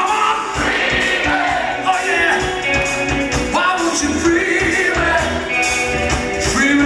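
Live rock band playing with a male lead vocalist singing, electric guitars, drums and keyboard, heard from within the audience.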